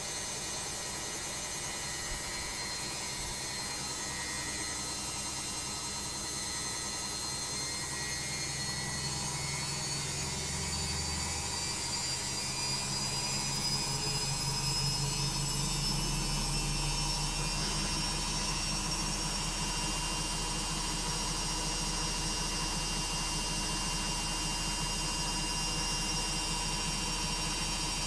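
Logik washing machine on its final spin: the motor whine rises in pitch as the drum speeds up over the first half, growing louder with a deeper hum. It then holds steady at full spin speed.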